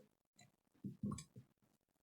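A few faint knocks and clicks from small laptop parts being handled, the loudest cluster about a second in.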